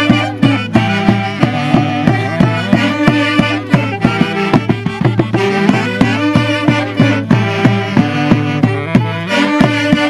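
Traditional Huancavelica Santiago folk music, with saxophones playing the melody over a steady, evenly repeated drum beat.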